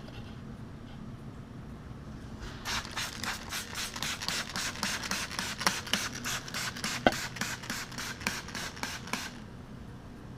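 Rapid, even scratchy strokes, about four or five a second, from leak-check solution being worked over a small-block Chevy 350 engine block held at 35 to 40 psi of air, checking for the bubbles that would mean a crack. The strokes begin a few seconds in and stop near the end, with a light sharp tick about seven seconds in.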